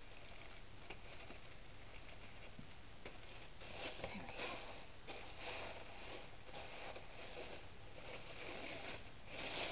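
Sheer glitter-dotted wrapping rustling and crinkling as hands unfold it and pull it off a parcel, a little louder about four to six seconds in.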